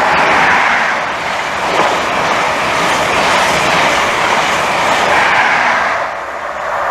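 London North Eastern Railway express train passing through the station at speed on the fast line, a loud, steady rush of wheels on rail, easing a little near the end.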